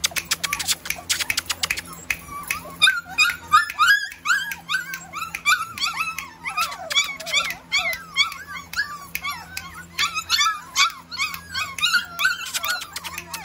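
A litter of puppies whining and yelping over one another: many short cries that rise and fall, several a second. A quick run of clicks and rattles comes in the first two seconds.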